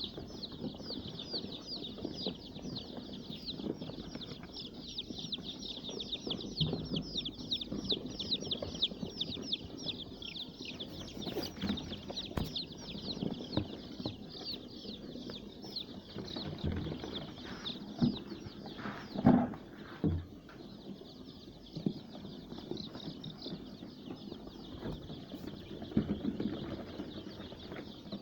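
Young layer chicks peeping, one of them really loud: a fast, unbroken run of high, falling peeps. A few soft knocks and flutters come from the chicks moving about, the loudest about two-thirds of the way through.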